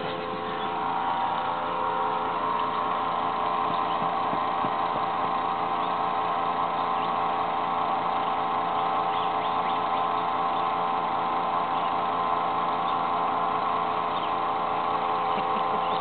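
A steady mechanical hum from a running motor, made of several held tones that do not change.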